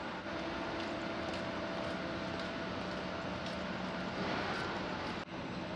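Steady mechanical drone with a faint low hum; it drops out for an instant near the end.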